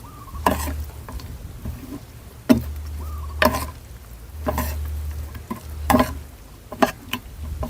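A person eating instant-noodle soup: a string of short slurps and mouth and utensil noises, coming every half second to a second.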